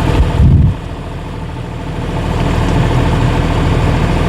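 A 3.5-ton mini excavator's engine runs steadily as the front blade is worked hydraulically. There is a brief louder surge about half a second in, then a dip, and the engine sound slowly builds again.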